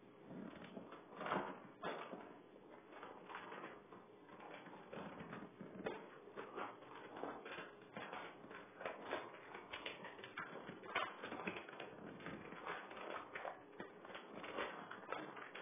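A dog rooting in a plastic treat bag on the floor, crinkling and rustling it in a fast, irregular run of small clicks.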